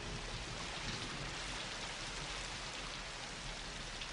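Steady rain falling on a wet street, with water running along the gutter into a storm drain.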